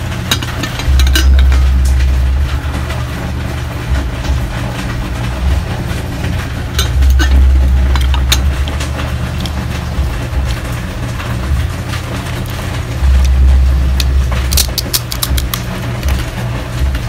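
Heavy rain falling, a steady loud rush with a deeper rumble that grows louder three times for a second or two each. Over it come scattered sharp crunches and clicks from eating crispy fried water spinach (kangkong), clustered near the end.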